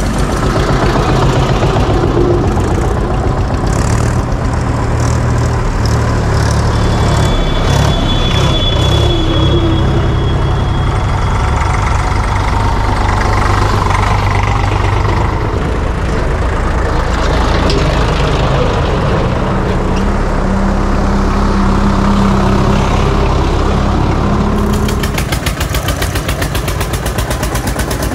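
Diesel tractor engines running loudly at close range: a steady low rumble with a fast, regular firing beat.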